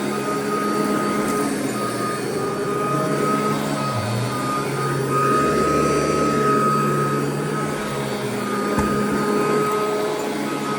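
Royal vacuum cleaner running over carpet, a steady motor whine and hum over a rushing airflow, getting a little louder in the middle as it pulls debris from the carpet. One brief low knock near the end.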